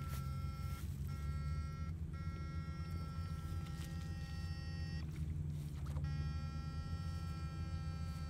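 Backpack electrofishing shocker buzzing steadily, with a high electronic whine over the buzz that cuts out briefly about a second and two seconds in, and again for about a second around the middle.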